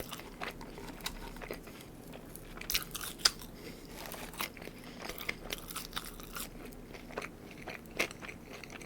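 Close-miked chewing of a mouthful of McDonald's Big Mac: irregular wet smacks and small crunches, with one sharper snap about three seconds in.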